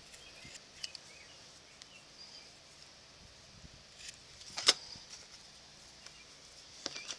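Scissors trimming a leather lace, a few faint snips and one sharp click about halfway through, over quiet outdoor background with faint bird chirps.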